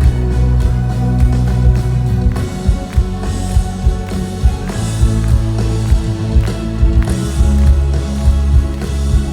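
Live pop band playing an instrumental passage with heavy bass, electric guitar and a steady drum beat, heard loud through a concert PA.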